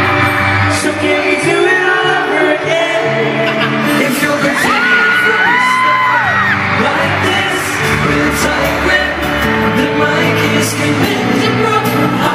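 Boy band singing a pop ballad live with band backing, and fans screaming high-pitched about halfway through.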